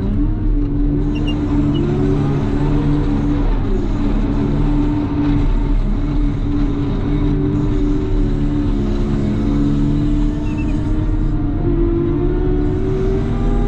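CAT loader's diesel engine running steadily under load, its pitch rising and falling slightly as it works.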